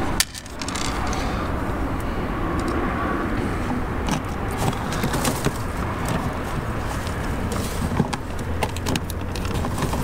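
Handling noise while fitting a car door panel: scattered small clicks and taps of the trim panel and screws, over a steady low background rumble.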